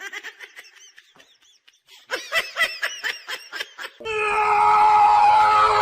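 Quick, rhythmic bursts of laughter, then a loud, long, steady cry from about four seconds in.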